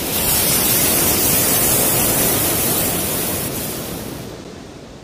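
Sea surf washing onto the beach: a loud rushing hiss that swells just after the start and fades away over the last second or so.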